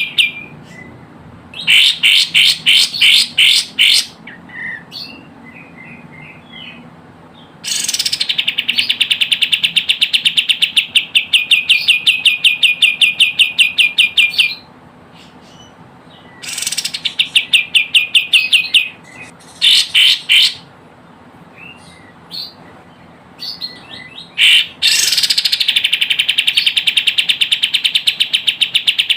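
Kapas tembak bulbul song recorded as a trapping lure: long trains of fast, sharp repeated notes, about six a second and lasting several seconds each, with softer scattered chirps in the pauses between.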